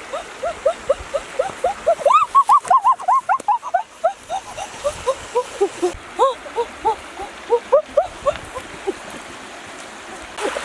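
Many short animal calls, each rising and falling in pitch, repeating several times a second in an overlapping chorus, loudest and densest about two to three seconds in, over a faint rush of flowing water.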